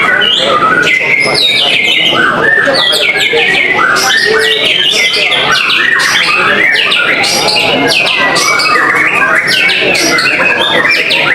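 White-rumped shamas (murai batu) singing in a constant stream of rapid falling whistled notes, with several songs overlapping.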